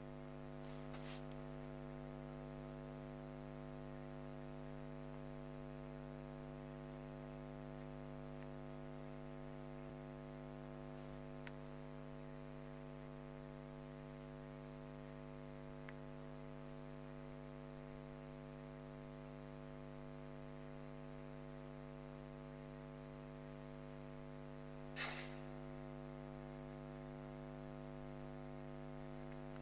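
Steady electrical hum: a low buzz with a stack of steady overtones that never changes, with a few faint clicks and one short, louder noisy rustle about 25 seconds in.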